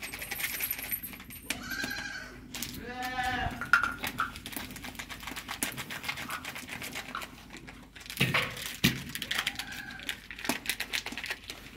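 Livestock bleating three times, one call with a quick tremble, over the light crackle of a wood fire. Two short thuds about eight seconds in.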